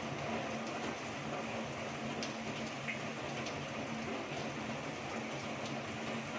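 Heavy rain falling steadily, a continuous even wash of noise, with occasional sharp ticks of drops striking nearby.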